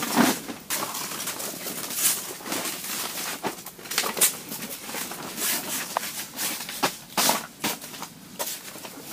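Nylon tent fabric rustling and crackling in short, irregular strokes as it is handled and pulled into place during pitching.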